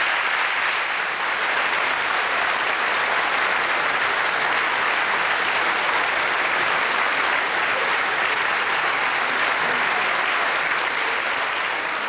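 Theatre audience applauding: dense, steady clapping from a full house, beginning to fade near the end.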